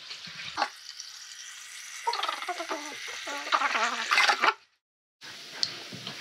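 Cold water pouring into a cooking pot of tripe, a steady splashing rush, with low voices in the middle and a brief dropout to silence near the end.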